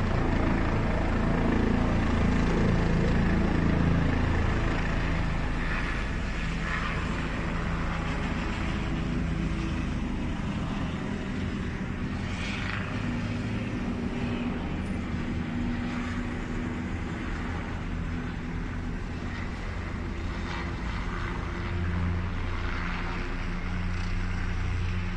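Distant helicopter hovering, a steady low drone of rotor and engine, a little louder for the first few seconds.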